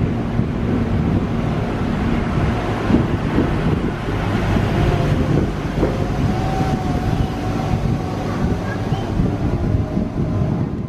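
Railway track and overhead-line inspection car (KUJRL) running past close alongside a station platform: a steady low rumble, with wind buffeting the microphone.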